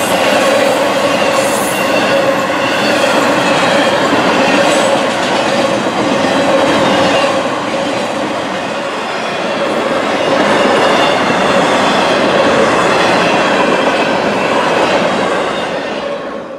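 CSX freight train's cars rolling past at speed: a steady rush of steel wheels on rail with a ringing note running through it, fading out near the end.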